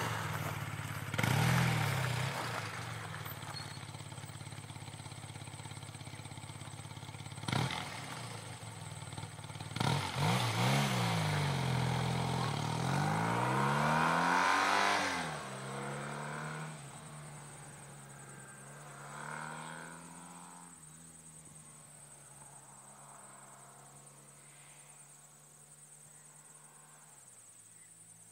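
1991 BMW R80S air-cooled flat-twin engine pulling away and accelerating up through the gears, the revs climbing and dropping with each shift, then fading steadily into the distance.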